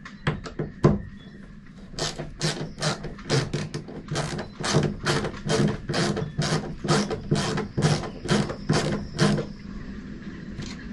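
Ratcheting screwdriver backing a long screw out of a door hinge: a steady run of short clicks, about three a second, after a few scattered clicks at the start.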